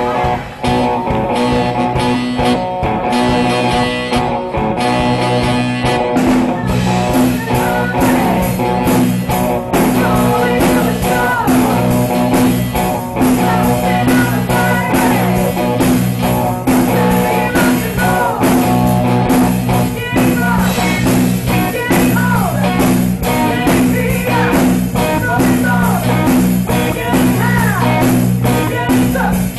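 Live band playing an amplified song: electric guitars and drums, with a sung vocal line.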